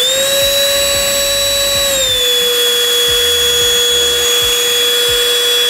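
Ingco cordless lithium-ion handheld vacuum cleaner running with a steady whine on its high power mode, then switched to its low mode about two seconds in, its pitch dropping a little and holding steady.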